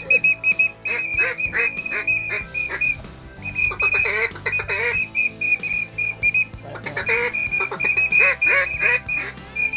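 Duck calling: quick trains of short, high, steady whistle notes, like a duck whistle, over lower quacking calls, repeated several times with short gaps.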